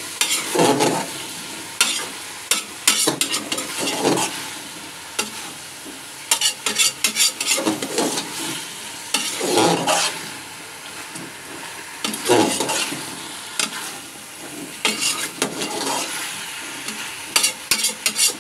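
Potatoes, cauliflower and fenugreek frying with a steady sizzle while a spoon stirs them in a metal pot. The spoon scrapes and clicks against the pot in quick clusters, with a longer scrape along the bottom every few seconds.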